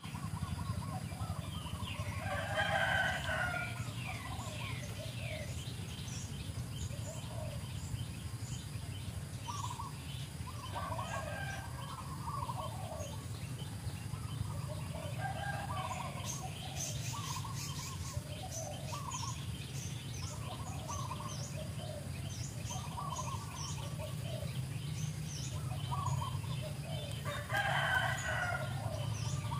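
Repeated short bird-like animal calls every second or two, with a longer, louder call near the start and another near the end, over a steady low hum.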